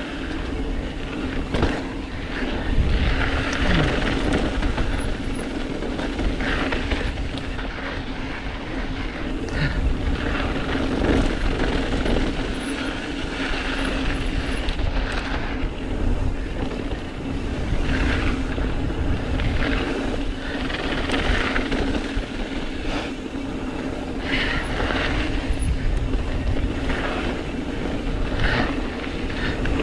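Mountain bike descending a dirt singletrack at speed: tyres rolling and crunching over dirt and loose gravel and the bike rattling over bumps, in uneven surges. Wind buffets the microphone with a low rumble, and a steady drone runs underneath.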